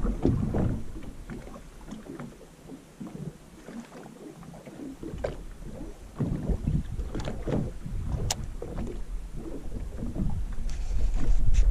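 Small waves lapping and slapping against a fibreglass boat hull in irregular splashes, quieter for a few seconds between about two and five seconds in. A single sharp click comes a little after eight seconds in.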